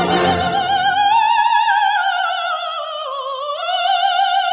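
Operatic dramatic soprano singing with an opera orchestra. The orchestra drops away about a second in, leaving the voice alone on long held notes with wide vibrato. The line sinks and then climbs back to a sustained note.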